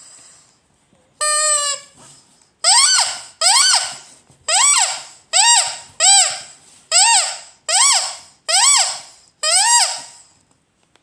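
Vintage Ledraplastic rubber squeaky toy squeezed again and again, about ten squeaks in a steady run, each one rising then falling in pitch as the toy is squeezed and let go.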